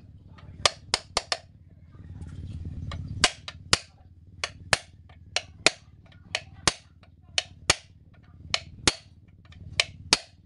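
Hammer striking a rivet punch to set the rivets of a new lining on a truck's drum-brake shoe, done by hand in place of a rivet press. Sharp metallic blows, mostly in quick pairs, about eighteen in all.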